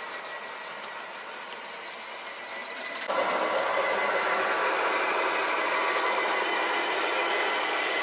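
Garden-scale model trains running on outdoor track. First comes a high-pitched squeal. About three seconds in, this gives way to a fuller, closer mechanical running noise with a steady whine as a locomotive and its cars pass near by.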